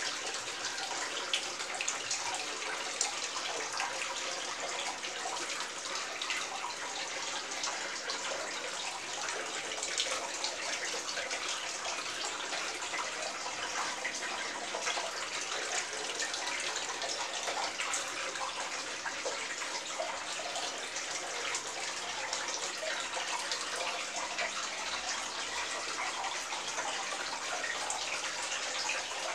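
Aquarium water trickling and bubbling steadily, with many small crackling splashes throughout.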